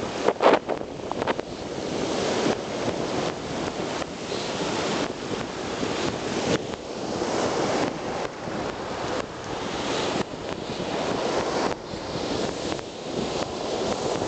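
Sea surf washing in and out over a sandy beach, rising and falling in waves, with wind buffeting the microphone.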